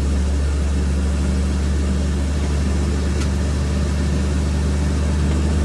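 Steady low engine drone and road noise heard from inside a vehicle cruising at an even speed on a highway, with a faint click about three seconds in.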